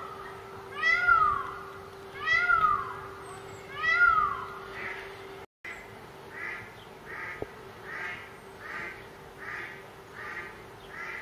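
An animal calling: three loud meow-like calls about a second and a half apart, each rising and then falling in pitch. These are followed by a run of quieter, shorter, higher calls, a little more than one a second. A faint steady hum lies under the first half.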